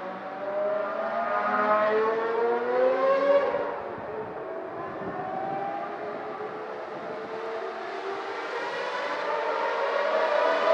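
Ferrari Formula One car's high-revving engine accelerating, its pitch climbing steadily. The sound drops away about four seconds in, then climbs again and grows louder toward the end as the car approaches.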